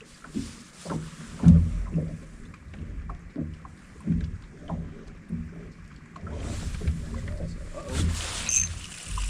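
Irregular low knocks and slaps of water and movement against a small fishing boat's hull, one knock louder about a second and a half in, with a steady hiss joining from about six seconds in.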